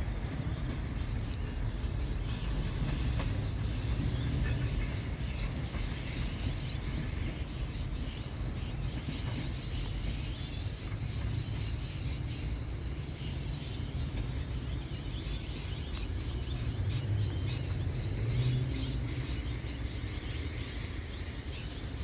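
Two-car diesel passenger railcar set running along the track as it draws away into the distance: a steady low rumble with no clear rise or fall.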